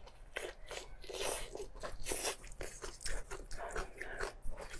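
Close-miked chewing and biting of braised meat: a steady run of irregular short clicks and smacks from the mouth.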